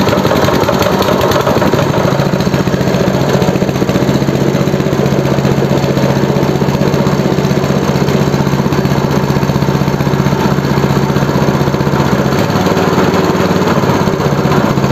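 Brand-new 7 hp single-cylinder four-stroke engine with an electric starter, freshly started and running steadily with its choke closed. Its note shifts a little about twelve seconds in.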